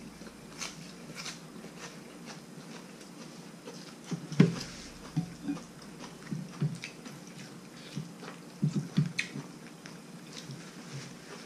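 People eating noodle soup: chewing and mouth smacks, with short clicks of chopsticks against ceramic bowls. The sounds come scattered and irregular, loudest about four and a half seconds in and again in a cluster near nine seconds.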